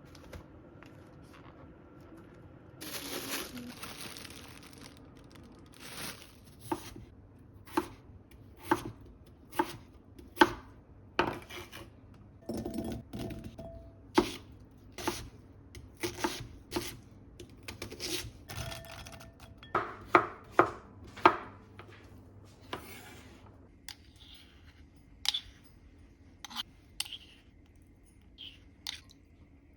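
Kitchen knife chopping food on a cutting board in slow single strokes, about one a second, with a short rustle before the chopping starts.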